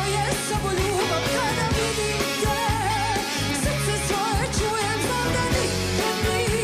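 A woman singing a pop-folk song live into a microphone, backed by a band of guitars, keyboard and drums. Her voice bends in wavering ornaments over a steady beat.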